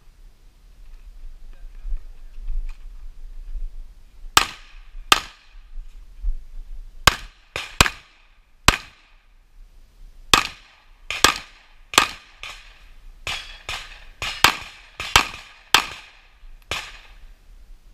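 Handgun fired rapidly: about seventeen sharp shots, in quick pairs and short strings with brief pauses between them, starting about four seconds in, each with a short echo.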